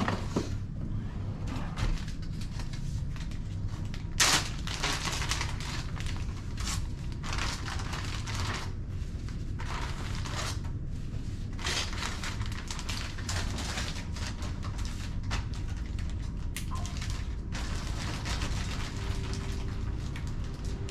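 Plastic freezer bag rustling and crinkling in irregular bursts as paper-towel-wrapped bacon is packed into it, with one sharp knock about four seconds in, over a steady low hum.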